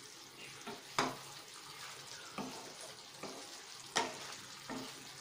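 A spatula stirring chicken and potato curry in a nonstick pan, knocking against the pan sharply about a second in and again near four seconds, with a few lighter knocks, over a steady low sizzle.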